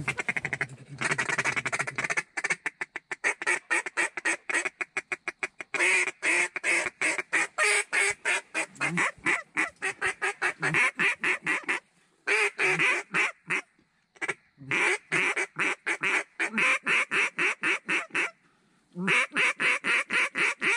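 Duck call blown in a long run of rapid, evenly spaced quacking notes, with short breaks about twelve, fourteen and eighteen seconds in.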